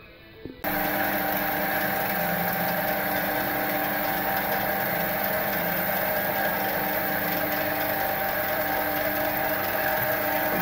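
Metal lathe running, its chuck spinning a threaded brass part: a steady motor and gear whine that starts suddenly about half a second in.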